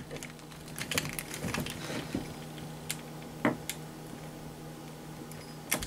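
Small scattered clicks and taps of a hand screwdriver tightening screws into an RC truck's chassis and motor mount, with a sharper tick about three and a half seconds in.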